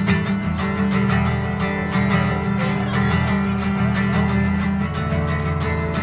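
Guitar strummed in a steady, quick rhythm, played live without singing.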